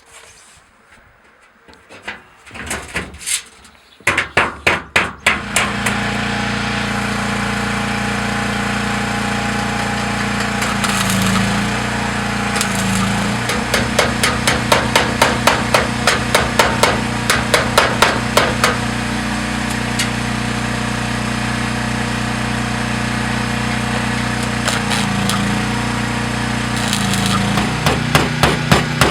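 Repeated hammer blows, in runs of quick, evenly spaced strikes. Under them runs a steady pitched drone whose pitch steps a few times.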